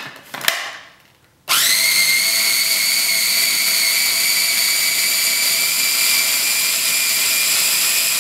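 An electric mini food chopper grinding cilantro leaves in oil: after a short click, its motor starts abruptly about a second and a half in, spins up and holds a steady high whine.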